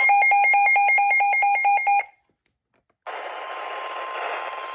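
Rapid electronic alert beeping, about eight beeps a second, that stops abruptly about two seconds in. After a second of silence, steady radio static hiss comes in with a faint steady tone under it.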